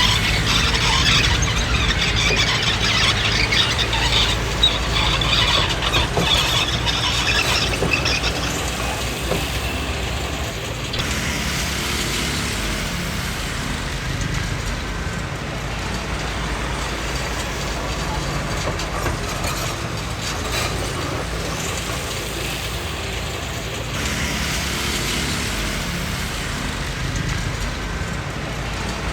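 Komatsu D20P crawler bulldozer working, its diesel engine running steadily under a high squeal and clatter from the steel tracks. The squeal and clatter are strongest for the first ten seconds or so, ease off, and come back near the end.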